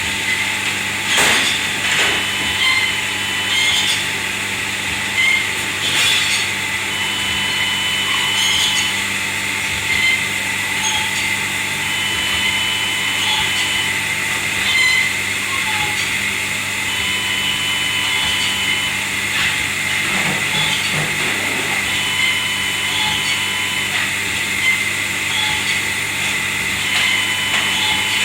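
Steady, loud machine noise with scattered clatters and knocks, and a short high tone that repeats about every five seconds.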